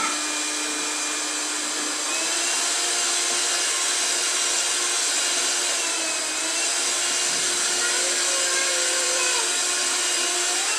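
Electric hand mixer running steadily with its beaters in batter, a constant motor whir that gets a little louder about two seconds in.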